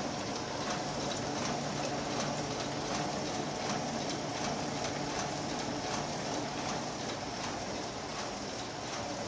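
AB Dick 9810 mini offset press running, a steady mechanical clatter with a regular clack a little over twice a second.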